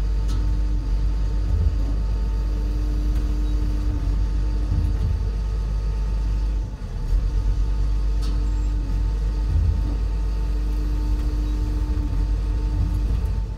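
SANY mobile crane's diesel engine running with a steady low rumble, while a hydraulic whine comes in as the telescopic boom section is retracted and its lock engages. The whine breaks off about halfway, with a brief dip in level, then returns for several seconds: the lock is sticking a little.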